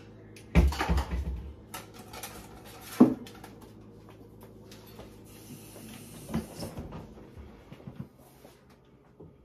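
Kitchen handling noises: heavy thumps and knocks about half a second to a second and a half in, a sharp knock about three seconds in, then a rustle and lighter clatter and clicks.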